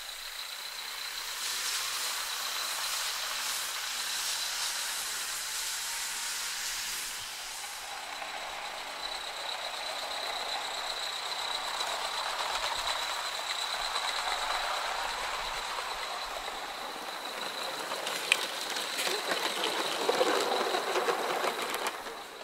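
Coal-fired Gauge 3 live steam locomotive running with a train of wagons, with a steady hiss of steam. One sharp click about 18 seconds in.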